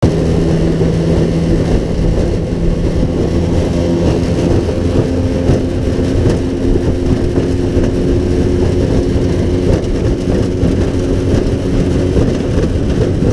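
Small boat's outboard motor running steadily while the boat is under way, a held hum with a slight shift in pitch about four seconds in, over wind and water noise.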